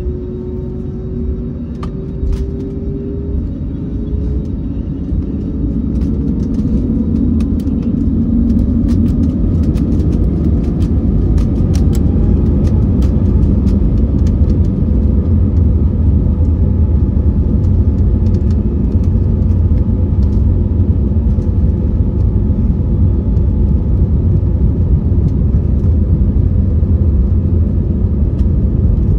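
Inside the cabin of an Airbus A321neo during takeoff: the Pratt & Whitney PW1100G geared turbofans spool up to takeoff thrust. A whine rises in pitch over the first dozen seconds above a growing low rumble, with knocks and rattles of the takeoff roll through the first half, then a steady loud roar.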